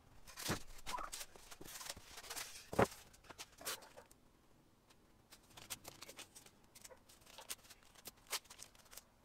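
Handling noises at the bench: a few knocks and scrapes, two of them sharper, as the quartz slab is lifted and set down on foam blocks, then lighter clicks and rips of painter's tape being torn off the roll and pressed onto the stone.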